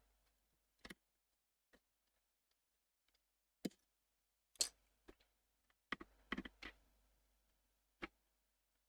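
Near silence broken by a handful of small, sharp clicks and taps a second or more apart, from a fuse being seated in its holder and small parts being handled on a power-supply circuit board.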